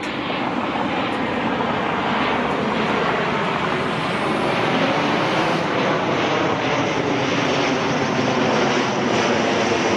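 Airplane flying low overhead: a loud, steady engine noise that holds through the whole stretch.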